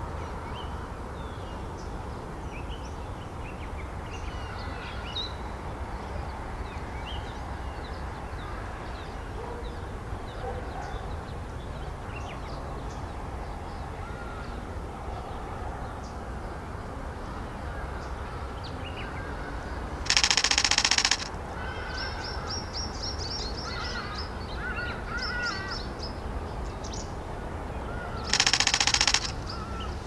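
Small wild birds chirping and calling over a steady low rumble. Twice, about two-thirds of the way in and again near the end, a loud rapid rattling burst about a second long.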